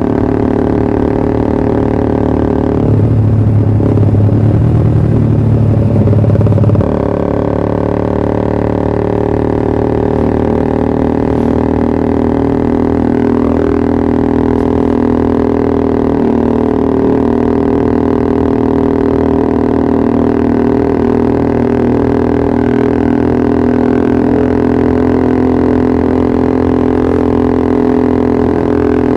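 Yamaha R15 V3's single-cylinder engine running steadily through a Pro Liner TR1 aftermarket exhaust, with a louder, rougher stretch of about four seconds near the start, as if given some throttle.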